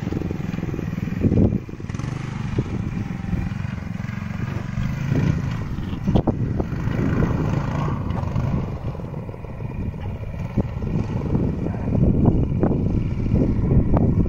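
Mini bike's 10 hp Tecumseh HM100 single-cylinder engine running under throttle off-road, its pitch rising and falling as the rider goes, with a few sharp knocks.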